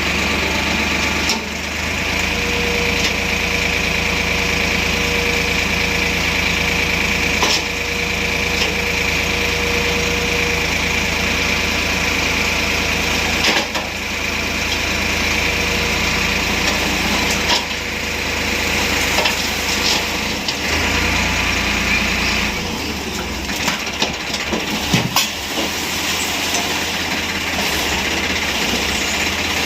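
JCB 3DX backhoe loader's diesel engine running steadily with a high whine over its low rumble, and occasional sharp knocks and clunks.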